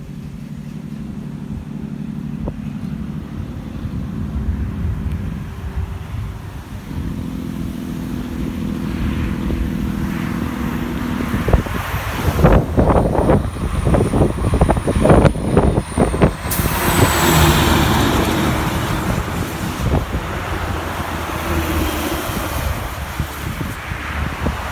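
Road traffic on a two-lane highway: car and truck engines run steadily as they approach, then a vehicle passes close about two-thirds of the way through with a rush of tyre noise. Wind buffets the microphone in the middle.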